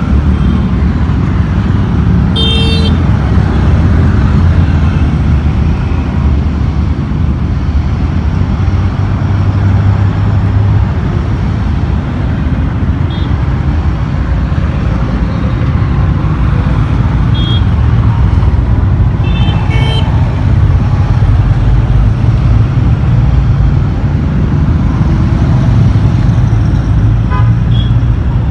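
Steady road traffic at a busy city junction: passing motorbikes, scooters, cars and auto-rickshaws give a continuous deep rumble. Short vehicle horn toots cut through it, one a couple of seconds in, a few through the middle with a cluster of honks about two-thirds of the way in, and one near the end.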